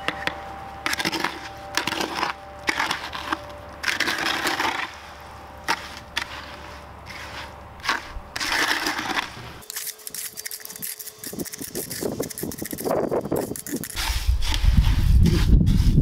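Hand trowel scooping dry refractory cement mix and stirring it into water in a plastic bucket: a run of short gritty scrapes of the blade through the powder and against the bucket. A low rumble comes up near the end.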